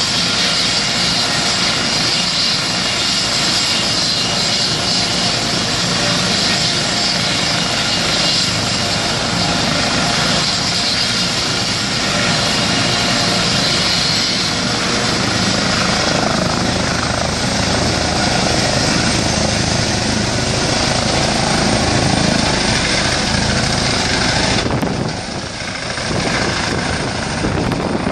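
Eurocopter EC135 air ambulance helicopter running at power on the ground, a loud steady turbine whine and rotor noise, then lifting off in the second half; the sound dips briefly near the end as it climbs away.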